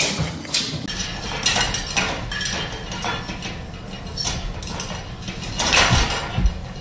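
A puppy clambering over a metal pet gate: the gate rattles and clicks under its paws, with a louder clatter and two dull thumps near the end as it drops down.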